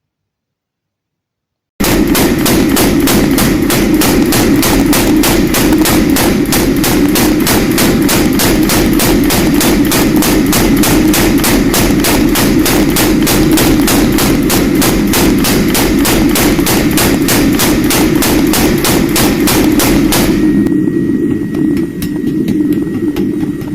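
Power hammer forging steel: rapid, even blows, about four or five a second, over the steady hum of its motor. The blows start after a couple of seconds of silence and stop about three seconds before the end, leaving the motor running.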